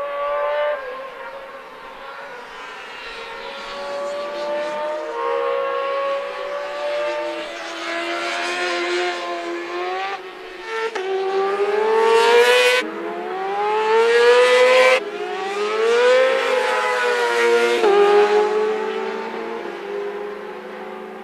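Racing motorcycle engines at high revs on a circuit. The pitch climbs, breaks off and climbs again through a run of quick upshifts as a bike accelerates past, loudest just past the middle, then falls away.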